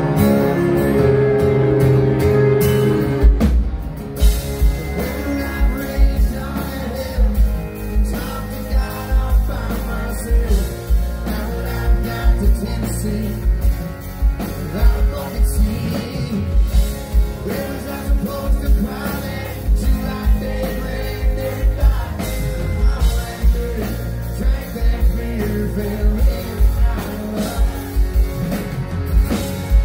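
A live country band plays, with strummed acoustic guitar and pedal steel guitar; a steady kick-drum beat comes in about three seconds in.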